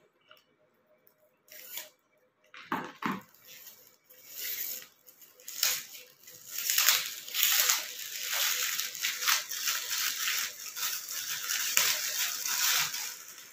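Plastic wrapping crinkling and rustling as a firecracker box is unwrapped by hand. It comes in short separate bursts at first, then is almost continuous from about four seconds in.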